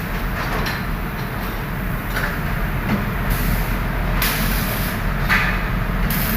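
Electric arc welding: a steady electrical hum with bursts of crackling hiss several times in the second half.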